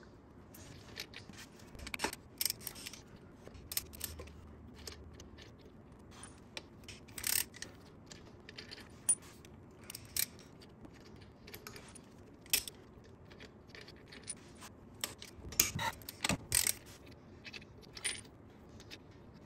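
Flywheel bolts being unscrewed by hand and clinking together: irregular sharp metallic clicks and jingles, a few louder clinks among many light ones.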